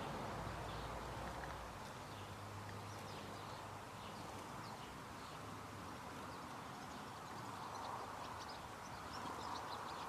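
Faint, short high ticks from blue tits at a peanut feeder, more of them in the last few seconds, over a steady low outdoor background hum.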